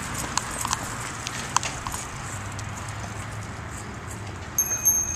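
Outdoor street ambience with a few scattered sharp clicks. Near the end a thin, high, steady tone sounds for about a second.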